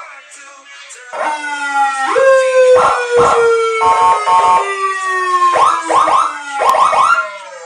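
Police-escort style siren horn fitted to a Yamaha Jupiter MX motorcycle, sounding a long wail that falls slowly in pitch. Short steady blasts and quick yelps break into it, the yelps coming in threes near the end.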